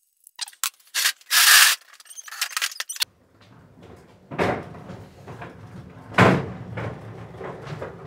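Clicks and clatter of objects being moved, with one loud scrape about a second and a half in, then a sudden cut. After the cut, a low rumble of a plywood cart's casters rolling over a concrete floor, with two louder bumps.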